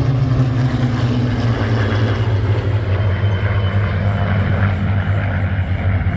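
A formation of Supermarine Spitfires flying past, their Rolls-Royce Merlin V12 engines making a steady low drone. The pitch falls a little over the first couple of seconds as they pass.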